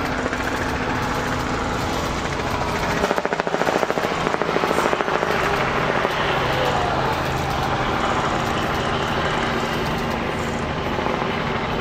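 Steady engine drone over a hiss of noise, taking on a rapid, even pulsing beat for a couple of seconds about three seconds in.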